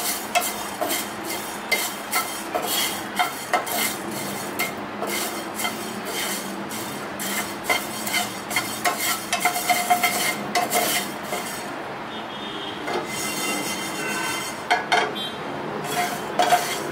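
Whole coriander seeds stirred with a wooden spatula as they roast in a nonstick frying pan: a steady run of scraping and rattling of the seeds and spatula against the pan. The strokes thin out over the last few seconds, with a couple of sharper knocks near the end.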